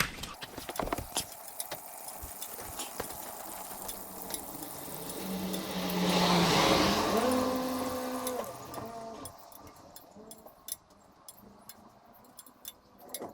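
A passing vehicle swells and fades about six to eight seconds in, its engine note rising slightly in pitch, followed by scattered light clicks and ticks.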